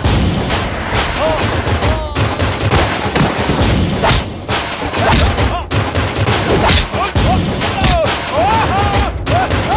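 Fight-scene sound effects from an action film: a rapid, dense stream of hits and impacts, broken by short yells.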